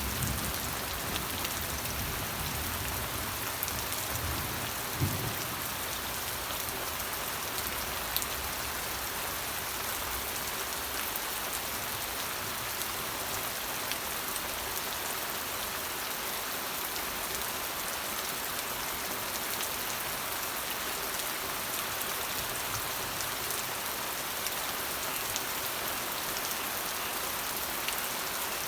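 Steady rain falling, an even hiss with scattered sharper drop taps; a short low thud sounds about five seconds in.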